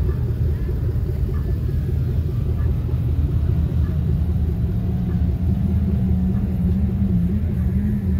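Off-road vehicle engine running with a heavy low rumble; a steady drone settles in about halfway through and wavers slightly in pitch.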